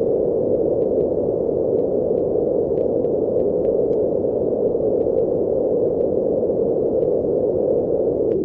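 Steady low rushing noise like a sustained energy-aura rumble, with faint scattered crackles over it.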